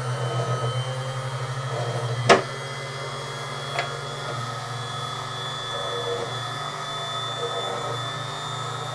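Small benchtop drill press running as a hole is drilled into a hinoki board: a steady motor hum with a high whine, a sharp knock about two seconds in after which it runs a little quieter, and a lighter click a second and a half later. The drill is not running right and lacks speed.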